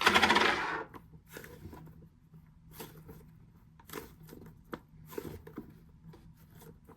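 Hands squeezing and handling a squishy toy. A loud crackly rustle in the first second, then faint rubbing, scraping and small taps.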